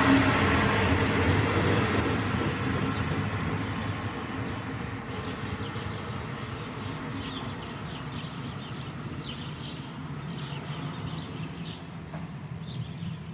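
Train pulling away and receding, its running noise fading steadily into a low rumble. Faint high chirps come and go from about five seconds in.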